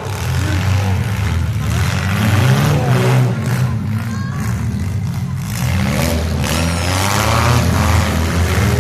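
Demolition derby cars' engines running and revving, a loud, steady low drone.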